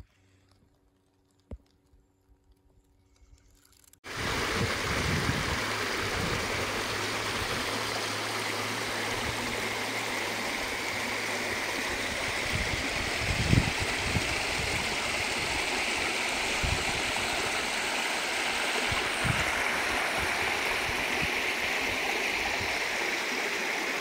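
Shallow mountain stream running over stones: a steady rush of water that starts abruptly about four seconds in, after a few seconds of near quiet with a single click. A few low thumps sound under the water.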